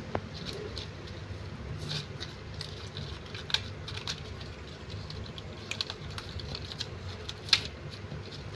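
Several kittens eating from a plate: irregular small clicks and smacks of chewing and lapping, with a few sharper clicks, the loudest near the end.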